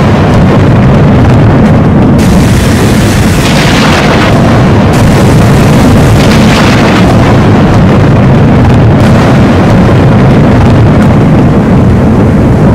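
Thunder rumbling without a break, very loud and overloaded, with a higher hiss swelling and fading a few times.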